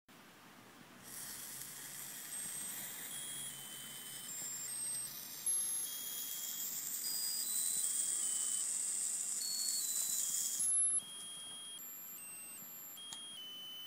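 Musical lotus birthday candle: its central sparkler burns with a steady high hiss while the candle's music chip plays a tinny beeping tune, one note at a time. The hiss cuts off near the end and the tune goes on.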